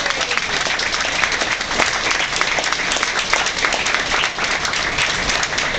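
Audience applauding: many hands clapping at once in dense, steady applause.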